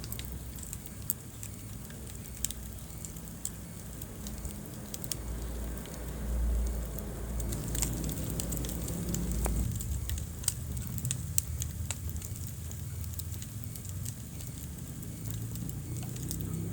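Wood fire crackling in a fireplace: scattered sharp pops and snaps over a low rumble of flames, the rumble swelling for a few seconds midway.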